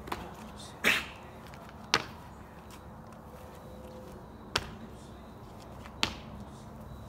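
Sneakered feet landing on brick paving during two-footed jumps: four sharp thuds, the first two about a second apart, then two more about a second and a half apart after a pause.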